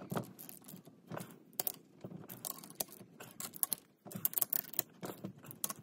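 Hand ratchet wrench with a 13/16-inch socket clicking in short irregular runs as the ring gear bolts are snugged down on a differential carrier, with a brief pause about four seconds in.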